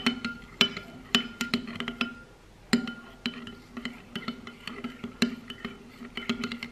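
Metal spoon clinking against a clear glass bowl while stirring a thick mix of dish soap, salt and food colouring; each knock leaves the bowl ringing briefly. The knocks come every half second or so, with a short pause about two seconds in.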